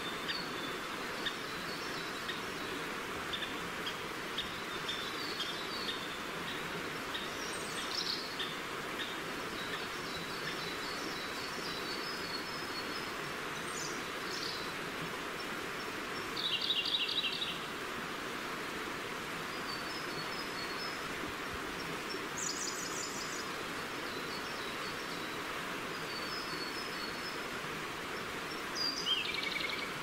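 Forest river flowing with a steady rush, with small songbirds calling over it. Runs of short high chirps fill the first half, a louder buzzy trill comes about halfway through, and a high trill ending in a falling note comes near the end.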